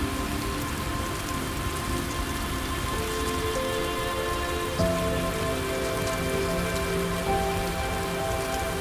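Steady rain with scattered drop ticks, over soft ambient music of long held notes that change pitch a few times.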